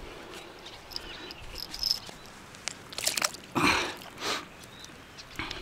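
Faint insect chirping outdoors, with a few short water splashes a little past the middle.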